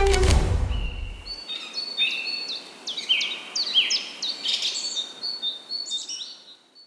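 Music stops within the first second or so, then several birds chirp over one another in quick, short, falling chirps with a thin steady high note, fading out near the end.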